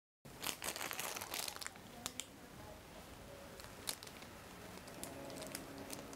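Crinkling and crackling of a plastic chip packet being handled, dense for the first couple of seconds and then sparser.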